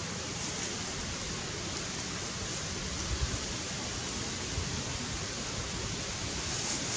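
Steady rushing hiss of outdoor ambience, with a low rumble underneath.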